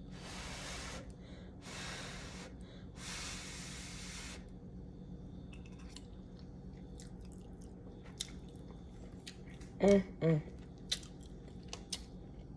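A person eating a piece of home-cooked salmon: three breathy puffs in the first few seconds, then soft chewing with small mouth clicks, and two short "mm" hums around ten seconds in.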